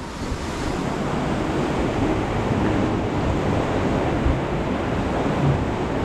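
Steady rush of churning water in an Intamin river-rapids ride channel around a round rafting boat, with wind buffeting the microphone.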